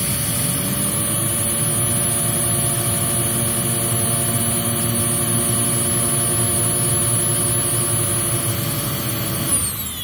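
Hoover Z400 upright vacuum running with its brush roll spinning up within the first second, then a steady motor hum. Near the end it is switched off with a click and the motor begins winding down, falling in pitch. The owner suspects its bearings are starting to go.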